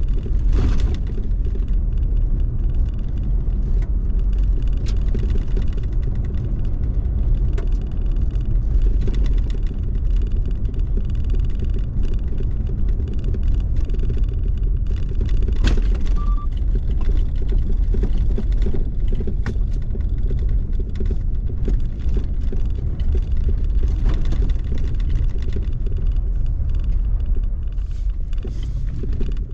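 Toyota Tacoma pickup driving on a dirt road: a steady low rumble of tyres and engine, with frequent small knocks and rattles from bumps and ruts.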